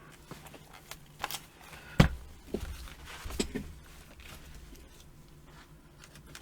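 Scattered clicks and knocks of computer hardware being handled on a workbench, with the loudest knock about two seconds in.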